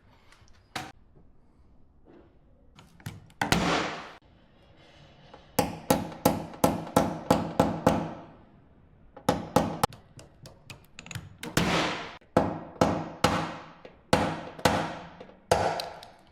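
Paintless dent repair tapping: a tap-down hammer strikes a car body panel in runs of sharp taps, two or three a second, each ringing briefly, knocking down the high spots around a dent as it is finished.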